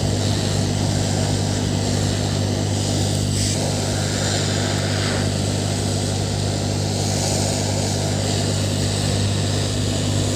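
Hot air blower running steadily, a low motor hum under a rush of air, drying a freshly cleaned laptop motherboard.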